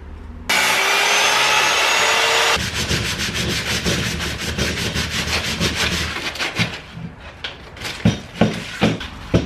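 Electric miter saw running through pine board for about two seconds, a slightly rising whine over the noise, then cutting off sharply. Then wooden Jenga blocks are hand-sanded with sandpaper in quick, steady rubbing strokes, with a few sharp wooden knocks near the end.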